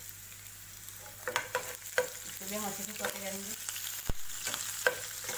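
Chopped garlic, ginger and green chillies sizzling in hot oil in a nonstick pan while a spatula stirs them, scraping and knocking sharply against the pan several times.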